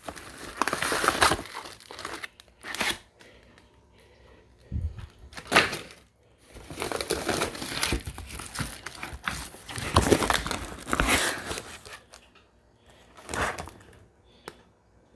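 Packaging crinkling and tearing as a box of salmon is unpacked: repeated bursts of crumpling, with short pauses between handlings.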